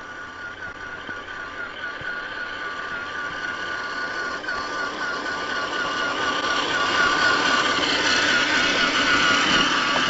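Electric drive of a 1/10-scale RC rock crawler (Tekin T35 motor through Axial SCX10 axles): a steady high motor and gear whine at an even pitch, growing louder over the first seven seconds or so and then holding.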